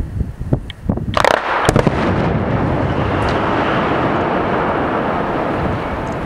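Explosive rock blast on a canyon cliff face: a sharp boom about a second in and a second crack just after, followed by a long rumble as blasted rock and debris come down the slope.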